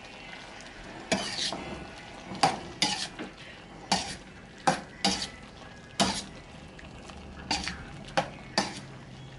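A utensil scraping and knocking against a stainless steel skillet as sliced steak with peppers and onions is stirred, about ten irregular strokes over a soft steady sizzle of the meat frying.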